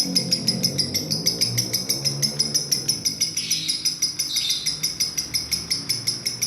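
Lovebird singing a long unbroken chattering song: a fast, even run of high chirps, about seven or eight a second.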